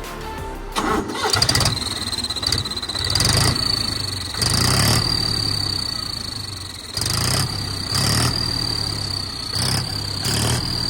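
Mahindra 275 DI tractor's three-cylinder diesel engine running with a whistle fitted in its exhaust silencer, giving a steady high-pitched whistle from about a second in. The throttle is blipped about seven times, each blip making the exhaust louder.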